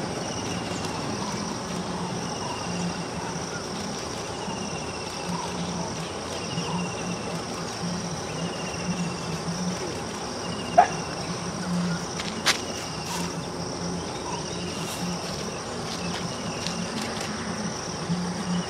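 Steady high insect buzzing, with a short chirp repeating about every second and a half over a low hum. Two sharp clicks come in the second half.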